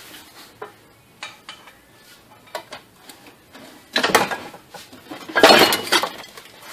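Mazda 626 manual transmission being pried off the engine: light metal taps and scrapes, a sharp clatter about four seconds in, then the loudest metal clanking at about five and a half seconds as the transmission comes free of the clutch.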